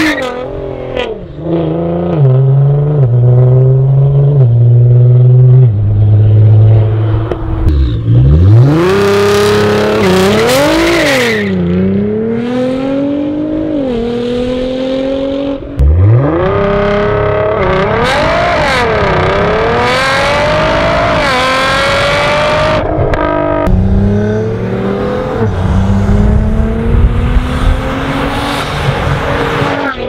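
Nissan GT-R R35's twin-turbo 3.8-litre V6 through a full titanium Armytrix exhaust, revving hard in a series of runs. The pitch climbs in long pulls as the car accelerates away, and in several sharp rev blips it rises and falls quickly.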